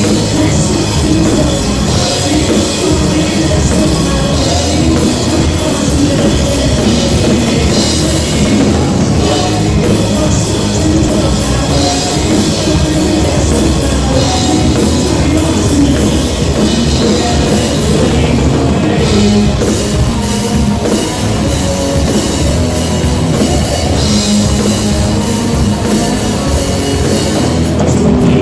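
Rock band playing loud with a full drum kit.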